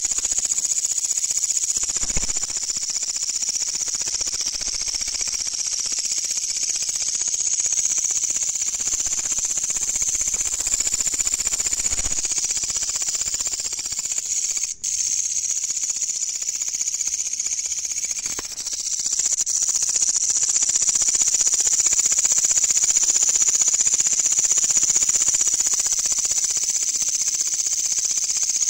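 Katydid stridulating: a loud, continuous high-pitched buzz. It breaks off for an instant about halfway through and grows louder a few seconds later.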